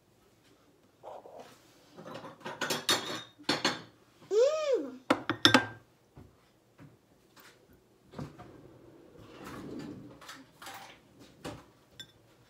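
Knife and utensils knocking and scraping on a plastic cutting board and plate while tomatoes are cut and hollowed out, a run of sharp knocks and clicks. About four and a half seconds in, a short pitched call rises and falls.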